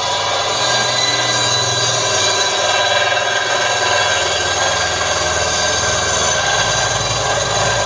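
Bench-mounted circular saw ripping lengthwise through a log: the running blade gives a steady sound with several high tones over the hiss of the cut and a low motor hum.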